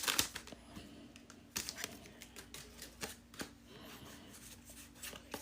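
Pokémon trading cards being flipped through one at a time: light, irregular clicks and ticks of card edges snapping against each other.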